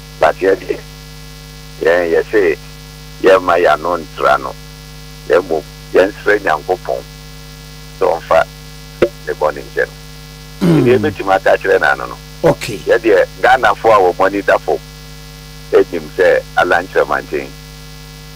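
A man talking, in short phrases with brief pauses, over a steady electrical mains hum.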